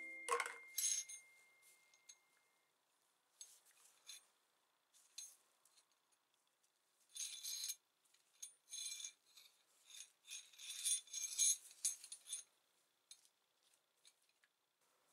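Steel drill bits and a hollow chisel mortiser bit clinking and rattling lightly as they are handled with gloved hands, in short scattered clicks and rustles, busiest from about seven to twelve seconds in.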